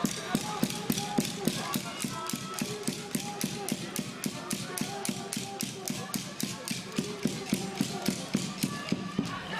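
A spectator cheering beat in the gymnasium: sharp, even clacks about four times a second, with faint voices among them.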